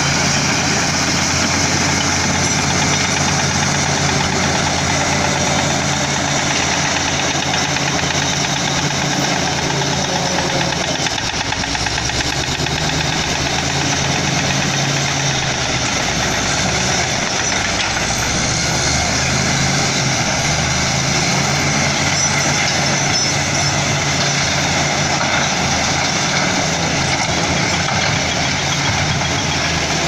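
Komatsu D85E-SS crawler bulldozer's diesel engine running steadily as the dozer pushes rock; its low engine note eases briefly a little over a third of the way in and again just past halfway.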